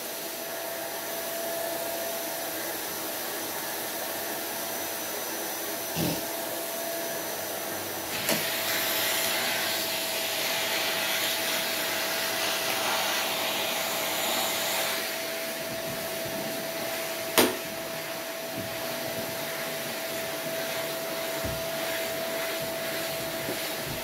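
Canister vacuum cleaner running, a steady suction hiss with a steady whine. The hiss grows louder for several seconds about a third of the way in, and a few knocks sound, the sharpest about two-thirds of the way through.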